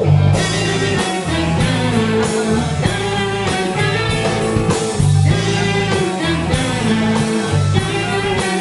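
Rock band playing, with guitar over bass and a steady drum beat; no singing.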